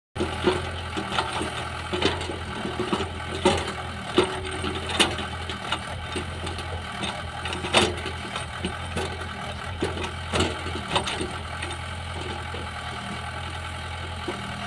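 Hyundai crawler excavator's diesel engine running steadily while it works a heap of soil, with irregular sharp clanks and knocks, the loudest about eight seconds in.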